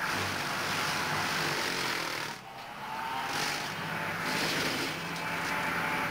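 Tractor-mounted mower running steadily as it cuts through brush and crop stubble, with engine drone under the noise of the cutting head. The level dips briefly about two and a half seconds in.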